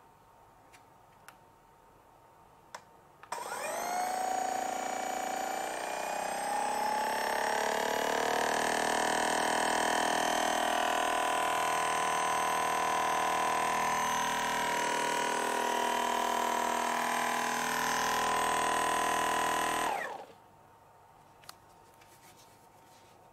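Theragun PRO percussive massage gun switched on and run in the air. Its motor spins up with a rising pitch about three seconds in, runs with a steady pitched buzz that steps up slightly a few seconds later, then winds down and stops after about sixteen seconds. Light handling clicks come before and after.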